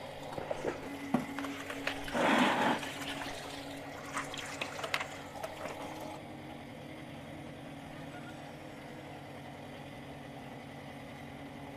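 Steady low machine hum with scattered clicks and knocks over the first six seconds, and a brief rush of water about two seconds in, the loudest part.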